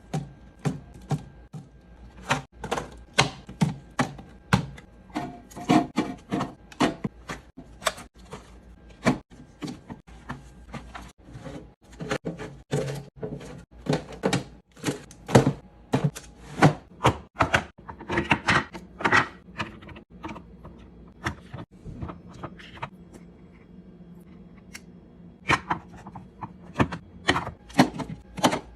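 Irregular clacks, taps and knocks of drink bottles and snack packs being set into a mini fridge's plastic organizer bins, several a second with short pauses.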